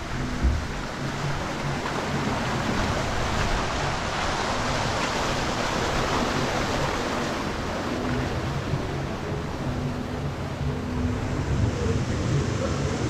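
Water rushing and splashing in a log flume channel around the ride boat, swelling for a few seconds in the middle where a cascade spills into the channel.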